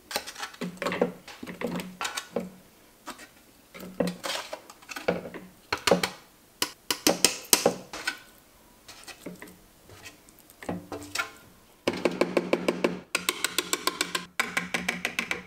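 Metal spatula knocking and scraping roasted vegetables off a metal sheet pan into a plastic food processor bowl, in irregular clatters. From about twelve seconds in, the slotted spatula rattles in a fast run of ticks, with a brief break, until near the end.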